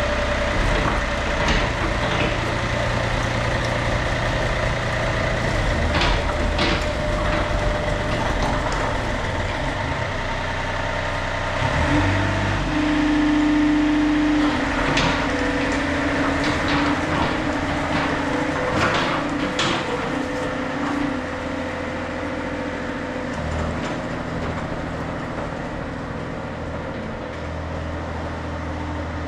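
Yanmar B37-1 mini excavator's diesel engine running, with its tone and load shifting about twelve seconds in as the hydraulics take up work. A series of knocks and clanks comes through over it, mostly in the middle stretch.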